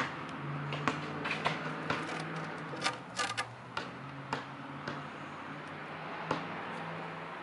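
Tape being pressed and smoothed onto the top of a glass aquarium: irregular light clicks and crackles, with a quick cluster about three seconds in.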